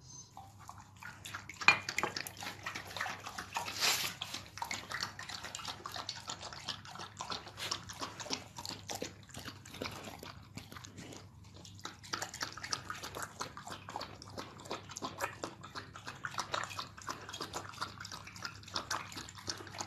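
A dog eating from a bowl: wet lapping and chewing, an irregular run of many quick small clicks and wet sounds.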